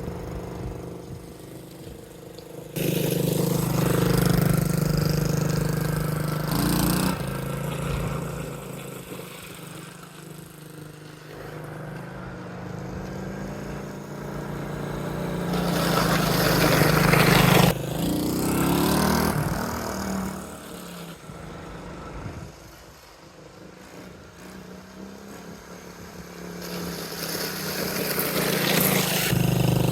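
Mini bike's small engine running as the bike rides around, growing louder and fainter as it passes close three times. It runs badly and only keeps going with some choke on.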